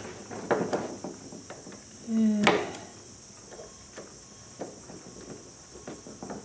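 Light clicks and taps of a steel screwdriver being picked up and seated in the large slotted screw of a rifle bolt handle, with a sharper knock about two and a half seconds in. A steady high hiss runs underneath.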